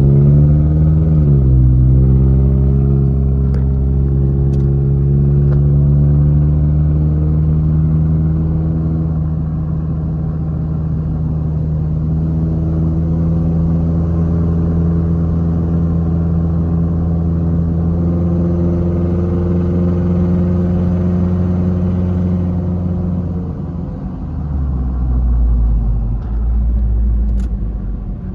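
Freshly installed Toyota 3RZ 2.7-litre four-cylinder engine pulling a pickup on a test drive, run at different RPMs. Its note dips and climbs again about a second in, then holds a steady, slowly rising pitch, and eases off about 23 seconds in to a lower rumble.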